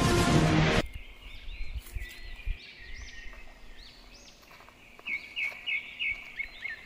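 Background music cuts off suddenly about a second in, leaving outdoor ambience of small birds chirping. A quick run of about five chirps comes near the end.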